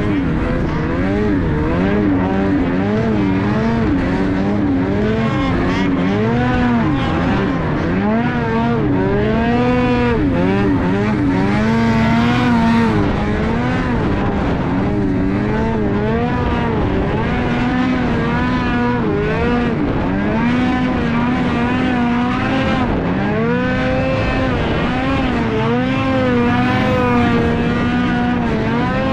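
Ski-Doo 850 two-stroke snowmobile engine under load in deep powder, its pitch rising and falling every second or two as the throttle is worked, settling into longer steady high revs in the second half.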